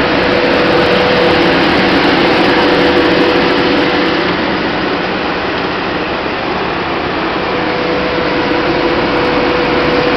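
Quinoa seed cleaning machine with gravity separator running: a loud, steady mechanical din with a steady humming tone that fades out midway and returns near the end.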